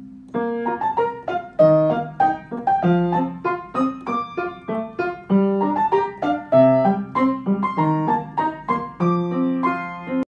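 Solo piano music: a steady, lively run of single notes and chords that cuts off abruptly near the end.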